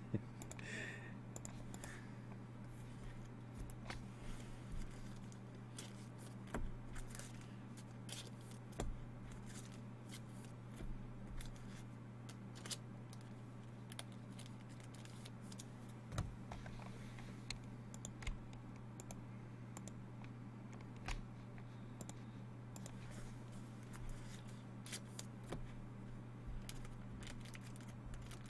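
Scattered light clicks and taps from hands working at a desk, a few sharper than the rest, over a steady low electrical hum.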